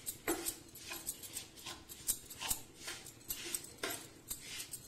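Spatula scraping and stirring crumbled paneer and sugar in a nonstick frying pan, in quick strokes about two a second.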